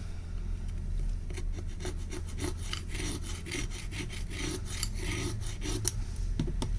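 Brush scrubbing back and forth over a phone's frame, cleaning off old adhesive residue, in quick repeated strokes of about two or three a second, over a steady low hum.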